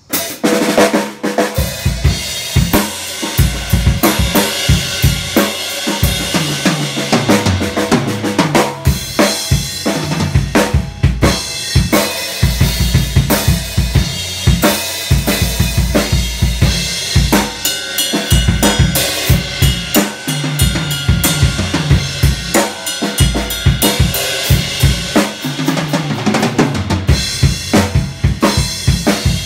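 Pearl Masters Series birch-shell drum kit played with sticks: a steady groove of bass drum, snare and cymbals that starts suddenly, broken by a couple of tom fills stepping down in pitch.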